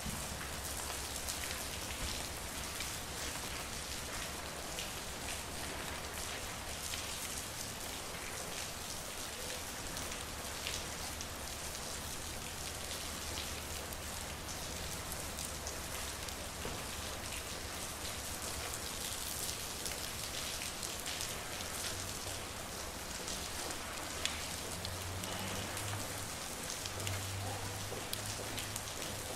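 Steady rain falling, with many individual drops ticking close by. A low hum runs underneath and grows stronger in the last few seconds.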